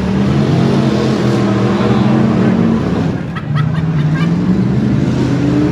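Engines of stock V8 demolition derby cars running loud and steady, dipping briefly about halfway through before picking up again.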